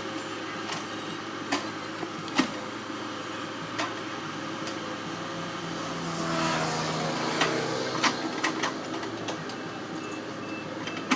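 Heavy machinery's diesel engine running steadily, working harder for a couple of seconds in the middle, with scattered sharp metallic knocks.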